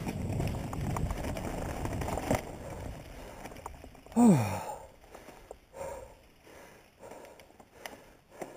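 Mountain bike rolling over a rough dirt trail, its tyres and frame giving a dense rattling rumble that fades after about three seconds. About four seconds in, the rider lets out a short vocal sound that falls steeply in pitch. After that there are only a few faint knocks.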